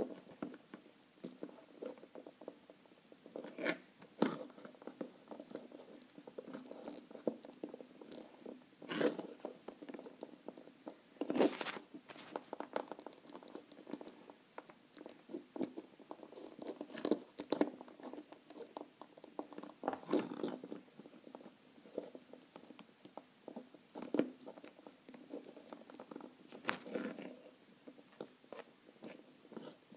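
Fingers handling plastic Schleich toy figures close to the microphone: scattered small clicks, taps and rustles as a rider figure is worked into the saddle of a toy horse.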